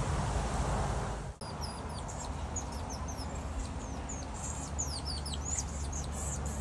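Tamarins calling: rapid high-pitched chirps and short falling whistles, many in quick succession, starting about a second and a half in. Before that, a steady outdoor background rush.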